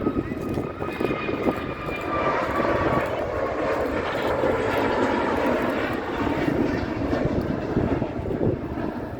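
Jet airliner departing at takeoff thrust: a steady engine roar with a high whine that drops slightly in pitch as it passes.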